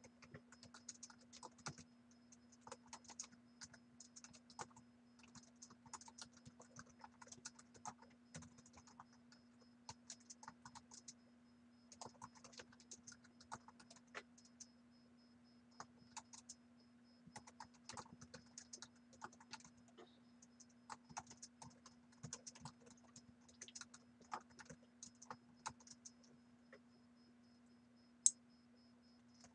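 Computer keyboard typing: quick irregular runs of key clicks with short pauses between them, and one sharper click near the end, over a faint steady hum.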